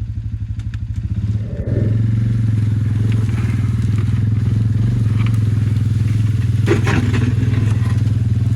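Four-wheeler engine running and getting louder about a second and a half in as it takes load, then holding steady while the plow blade pushes sheet tin. Short bouts of scraping and clattering metal come a few seconds in and again near the end.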